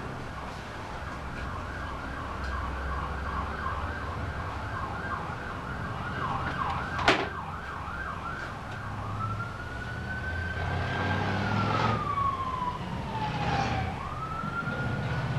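Stepper motors of a homemade CNC plotter whining as they move, the pitch sweeping up and down in quick arcs, about two or three a second, then in longer slow glides. A sharp click about seven seconds in.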